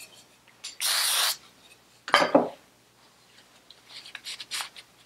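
Aerosol spray can giving a half-second hiss of cleaner onto a Vespa PX carburettor box, with a second shorter burst about two seconds in. Near the end comes the soft rubbing of a paper towel wiping the part clean.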